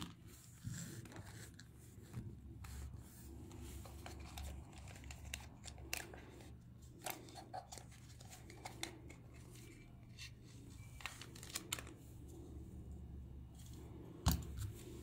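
Hard plastic toy parts being handled: scattered light clicks and rubs of the plastic shell and body, over a low steady hum, with one louder knock near the end.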